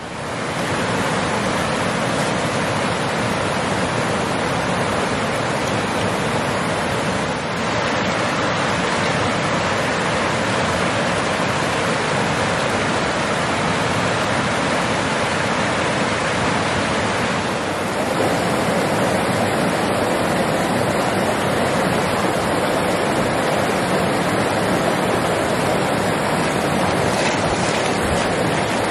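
Rushing water of a small rocky stream running through riffles and rapids, a loud steady rush. Its tone shifts slightly twice.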